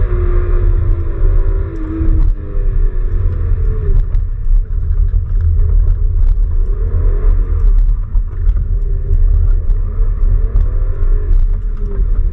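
BMW E36's engine heard from inside the cabin, revving up and down repeatedly as the car is driven hard through a slalom course, over a heavy, steady low rumble.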